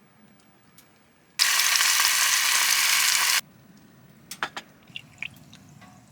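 Food frying in hot oil: a loud sizzle for about two seconds that starts and stops abruptly, followed by a few faint pops and ticks.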